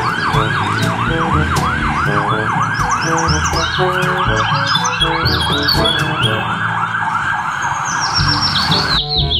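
Ambulance siren in a fast yelp, its pitch sweeping up and down about three times a second, with road traffic around it.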